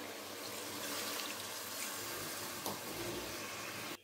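Water poured from a steel tumbler into a pressure cooker of chicken masala, a steady pour that stops abruptly near the end.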